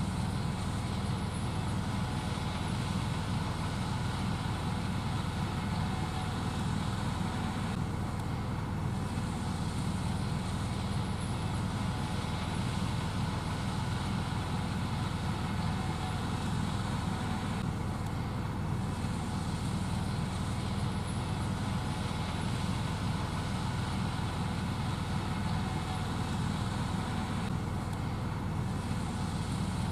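Gleaner S78 combine running steadily while shelling corn: a constant low engine and machinery drone with a steady hiss above it.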